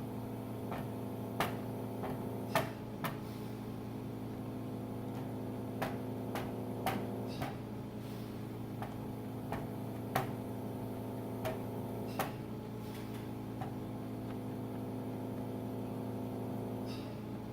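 An ink pad being patted onto clear rubber-style stamps: light, irregular taps, about a dozen spread out with gaps between. A steady background hum runs underneath.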